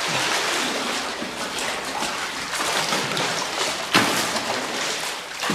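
Water splashing and sloshing as a person swims across an underground cave lake, with a sharper splash about four seconds in.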